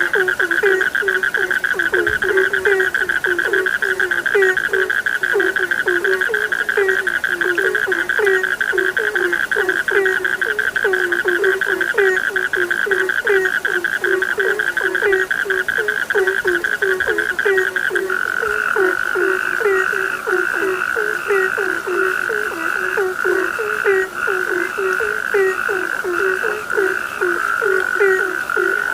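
Chorus of frogs croaking: low croaks repeat several times a second under a continuous high pulsing trill, which shifts slightly lower about eighteen seconds in.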